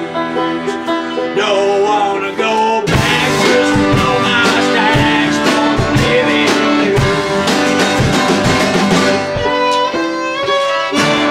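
Live acoustic folk band playing an instrumental passage: strummed acoustic guitar with accordion, and a fiddle bowed near the end. A steady rhythmic beat of strums sets in about three seconds in.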